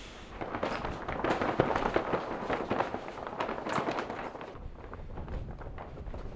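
Loose roofing underlay membrane flapping and snapping in strong storm wind: an irregular run of sharp cracks over the rush of the wind.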